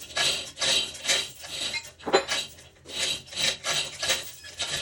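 Rhythmic back-and-forth rasping strokes of a hand tool being worked, about two strokes a second.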